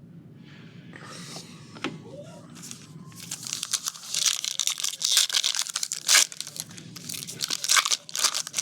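A trading-card pack wrapper being torn open and crinkled, with loud crackling rustles through the second half.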